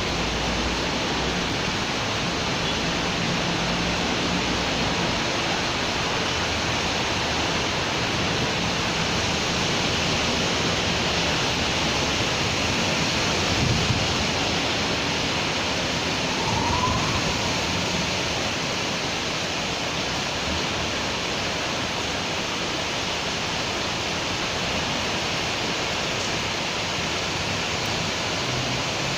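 Steady rain in a city street, an even hiss, with a low rumble of passing vehicles underneath. A short knock sounds about halfway through.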